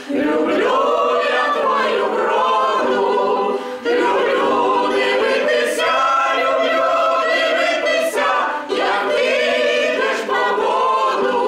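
Mixed folk choir of women's and men's voices singing a folk song a cappella, in long held phrases with brief breaks between them about four and nine seconds in.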